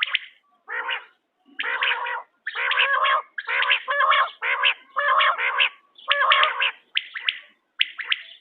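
Quail calling over and over: short, harsh, raspy notes in quick clusters, one after another with brief gaps.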